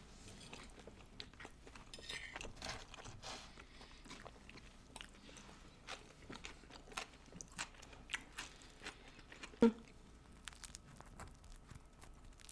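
Close-miked chewing and crunching of food, a run of small irregular crunches, as in an ASMR eating show. A single sharper knock with a short ring stands out about ten seconds in.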